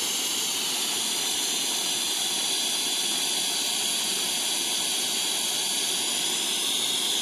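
Steady hiss of oxygen and propane flowing through an oxy-propane cutting torch into a garden hose, at about 40 psi oxygen and 5 psi propane, filling a gopher tunnel with an explosive gas mixture.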